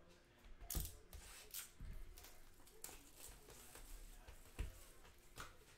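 Faint handling noises of hands moving trading-card boxes and packs on a desk: irregular sharp clicks and short rustles, the loudest about a second in and again near the end.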